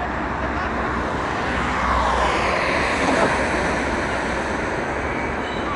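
Jet noise from a Bombardier CRJ900's two rear-mounted turbofan engines as it flies past on landing approach. About two seconds in, a high whine starts to fall in pitch as the aircraft goes by.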